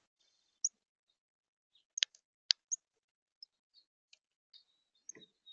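Small birds at a seed feeder: a few brief, high chirps mixed with sharp clicks and taps on the feeder. The two loudest clicks come about half a second apart, and a soft, low thump follows near the end.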